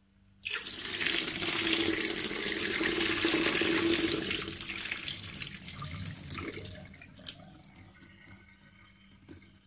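Rinse water poured off a bowl of washed salad into a stainless-steel sink. It starts suddenly with a loud splashing rush about half a second in, then tapers off over several seconds.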